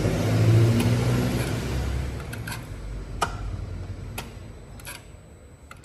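Starter motor cranking the Vectra's engine with its spark plugs out, labouring on a weak battery and a worn starter, fading away about two seconds in; then a few sharp clicks.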